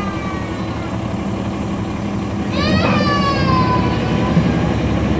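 Inside a NABI 40-SFW transit bus, its Caterpillar C13 ACERT diesel engine running under a steady low drone. A high drivetrain whine falls in pitch early on. About two and a half seconds in, a second whine sweeps up quickly and then slides down over the next second or so.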